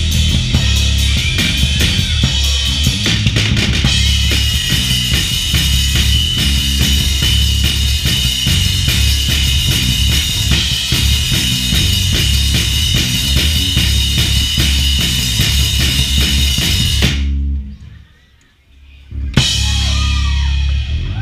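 Drum kit played hard and fast in a live drum solo, with bass drum, snare and constant cymbal wash, stopping abruptly about four seconds before the end. After a short, nearly silent gap, shouts and whoops start up near the end.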